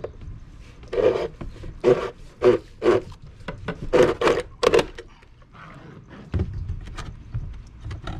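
Plastic coffee maker with an arrow lodged through it being handled on a tabletop: a run of short scraping rubs as it is tipped and the arrow shaft grinds against the casing, then a couple of dull knocks as it is set down about six seconds in.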